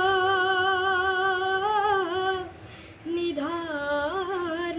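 A boy singing a Nepali song unaccompanied, holding one long note for about two seconds that wavers slightly at its end. After a short breath he starts another held phrase that slides up and down in pitch.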